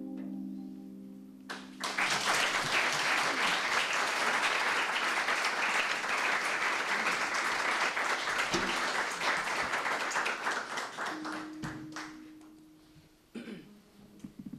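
The last notes of a kanun ring out and fade, then an audience applauds for about ten seconds, the clapping dying away near the end. A short held note and a few plucked kanun strings follow.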